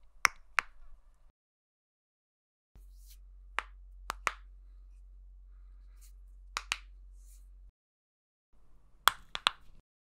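Knuckles cracking: sharp, short pops in three separate takes split by silence. There are two pops at the start, about five spread through the middle over a low hum, and a quick cluster of three or four near the end.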